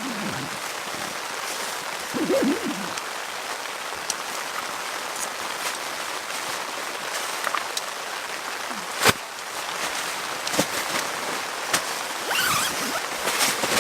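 Steady rain falling on a tent, a constant hiss with individual heavier drops striking now and then, the loudest about nine seconds in.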